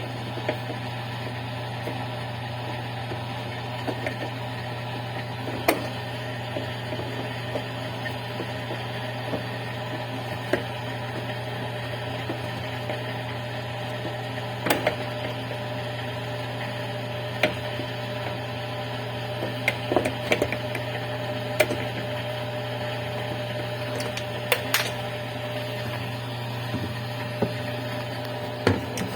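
A steady low electrical hum with scattered light clicks and knocks from hand work on a washing machine, the sharpest about 6 s and 15 s in and in a cluster between about 20 and 25 s in.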